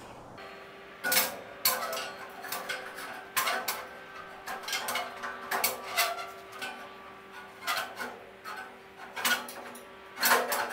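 Steel tube frame section clanking against a tubular steel buggy chassis as it is manoeuvred into place: a string of irregular sharp metal knocks, each with a short ring.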